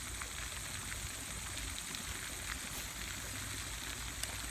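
Steady outdoor background noise: a low rumble and an even high hiss, with a few faint ticks.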